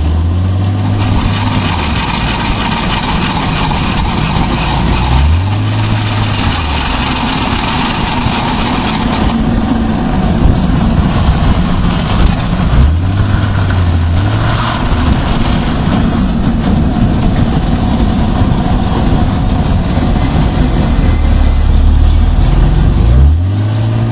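A 1998 BMW E36 323i automatic's straight-six engine and running gear heard from under the car as it drives slowly through tight turns. The engine note rises and falls several times over road noise, with the rumbling, clicking noise from the rear that the owner says comes when turning.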